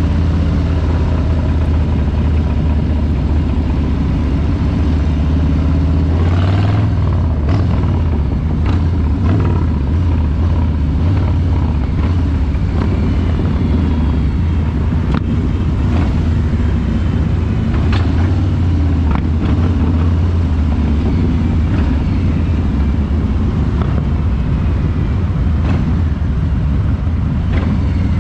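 Harley-Davidson Street Bob 114's Milwaukee-Eight 114 V-twin running under way, with the engine speed changing about six to seven seconds in.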